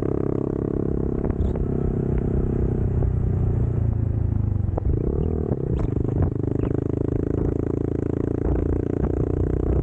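Motorcycle engine running under load off-road, its revs dropping briefly about halfway through and then picking back up, with scattered knocks and rattles.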